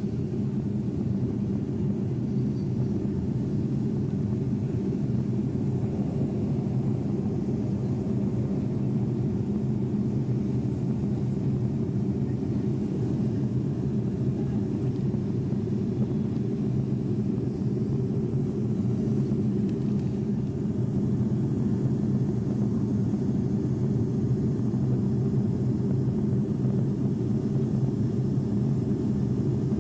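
Steady drone of an airliner's engines and airflow heard from inside the cockpit, recorded on a mobile phone. It grows slightly louder about two-thirds of the way through.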